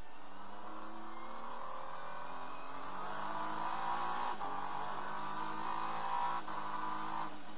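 Acura NSX GT3 race car's twin-turbo V6 heard from inside the cockpit, pulling steadily with its pitch slowly climbing. It breaks off briefly about four and a half and six and a half seconds in, as it shifts up.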